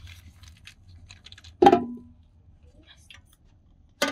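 Metal cooking pot and lid clanking: a loud clank with a short ring about one and a half seconds in, and another as the metal lid is set onto the pot near the end, over light crackling from the wood fire.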